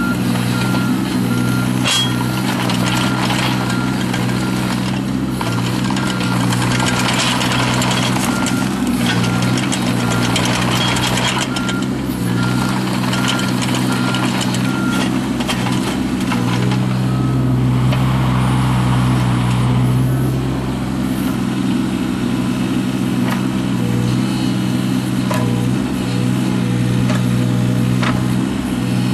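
John Deere 17D mini excavator's diesel engine running steadily under hydraulic load as the machine is worked, its note swelling about two-thirds of the way through. A repeating alarm beep sounds through roughly the first half, with scattered clanks from the machine.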